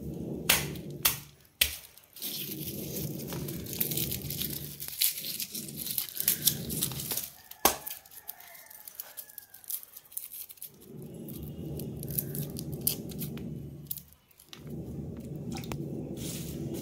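Garlic cloves being broken apart and peeled by hand: crackling and tearing of the dry papery skins with sharp clicks as the cloves snap. A low hum comes and goes underneath.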